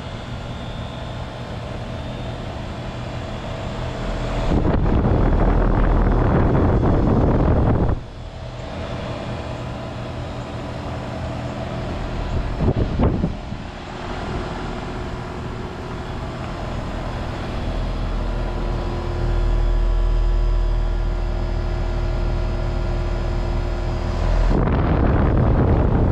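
Outdoor unit of a 2011 Thermal Zone heat pump running in heat mode: its Bristol Benchmark reciprocating compressor hums steadily, with several steady tones, under the outdoor fan. A louder rushing of air comes in from about four seconds in to eight seconds, briefly around thirteen seconds, and again near the end.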